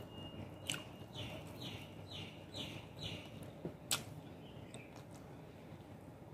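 Five short, faint falling chirps about half a second apart, like a bird calling, with a sharp click before them and another just after them.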